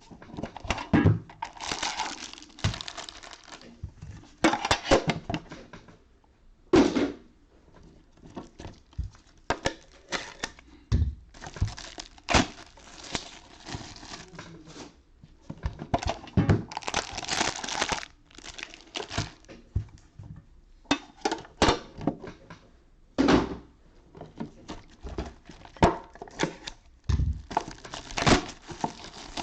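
Baseball card packs handled by hand: wrappers crinkling and rustling in irregular bursts, with scattered sharp knocks and thunks as packs and tins are moved.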